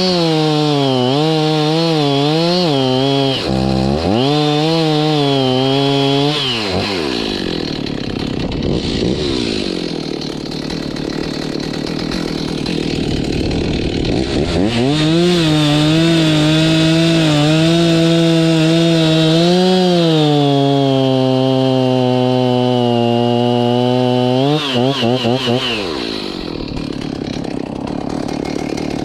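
Chainsaw cutting into a dead tree, its pitch wavering and sagging as the chain bites. The engine eases off about a third of the way in, revs back up and holds high for several seconds, then drops again near the end.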